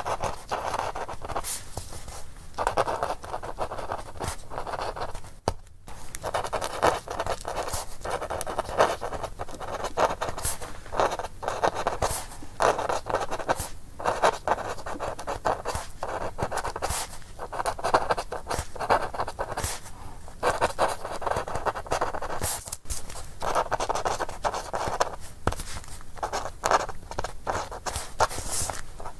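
A dry feather quill scratching across parchment in quick short strokes and longer scribbles, with brief pauses between groups of strokes.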